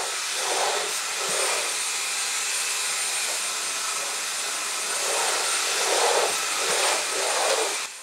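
Cordless stick vacuum cleaner running steadily, a loud hiss with a thin high whine, swelling a few times along the way. It cuts off suddenly near the end.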